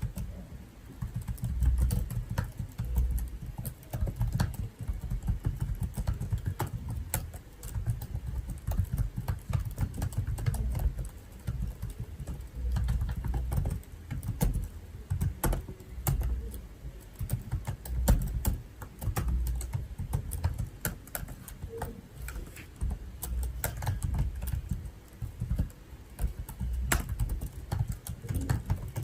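Typing on a computer keyboard: a fast, continuous run of key clicks, each with a low thud under it, broken by a few brief pauses.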